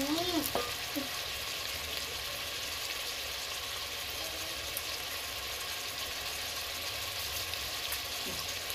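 Meat masala sizzling steadily as it fries in a metal pot, with a slotted wooden spoon stirring it in the first second.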